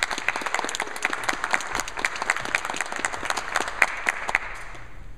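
Audience applauding with many hands clapping at once, dying away near the end.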